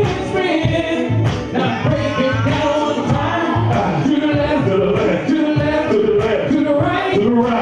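Music with live male singing: two men singing into handheld microphones.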